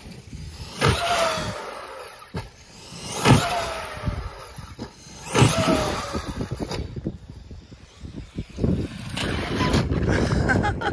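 Electric RC monster truck with a brushless motor, hit with three hard throttle bursts about two seconds apart, each followed by a short falling whine from the drivetrain. Near the end the truck lands, tumbles, and runs over grass, giving a rough, uneven rattle.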